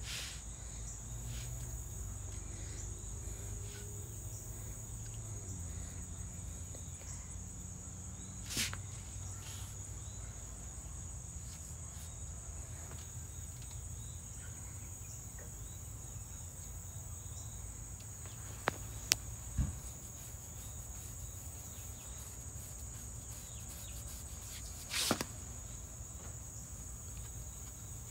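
Steady high-pitched insect chorus, a continuous even drone. A few brief knocks, around a third of the way in, in the middle and near the end, sound over it.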